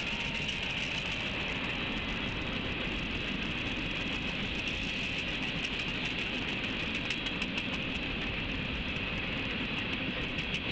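Freight train passing a grade crossing, picked up by a trackside webcam microphone: a steady rumble and hiss with wheels clicking over the rail joints. The clicks are thickest about seven to nine seconds in.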